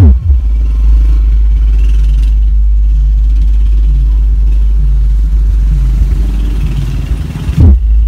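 Bass-heavy sound-test audio played loud through subwoofer speaker boxes driven by a Joson Earth 1.5 power amplifier: a deep, steady bass with a repeating pulse above it. A quick falling bass sweep comes at the start and again near the end.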